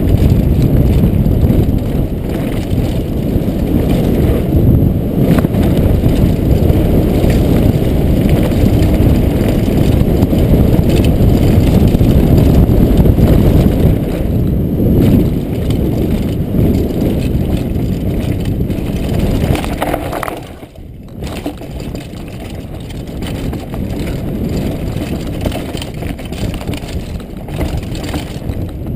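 Wind buffeting and the rumble of a downhill mountain bike's tyres and frame over a rough dirt trail, picked up by a helmet-mounted camera at speed. The heavy low noise drops sharply for a moment about twenty seconds in, then carries on somewhat quieter.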